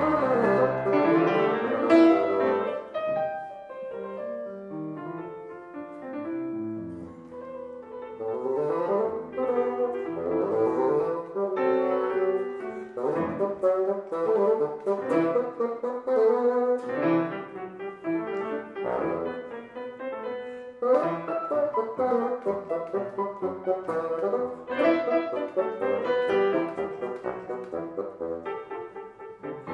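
Bassoon and grand piano playing together: the bassoon plays a melodic line of held notes over piano chords, the music growing quieter a few seconds in and then building again.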